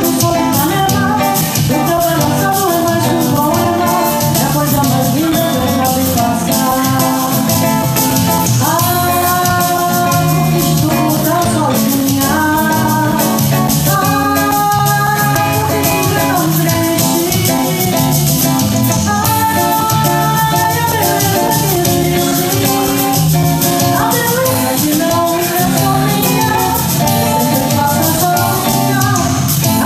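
Live band playing a song: a woman singing, with long held notes, over electric bass, electric guitar and drum kit.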